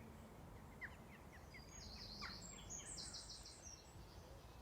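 Faint birdsong: a quick series of short chirps followed by a high trill, over a low background rumble.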